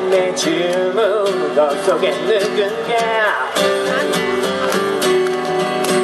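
Steel-string acoustic guitar strummed steadily, with a man singing along.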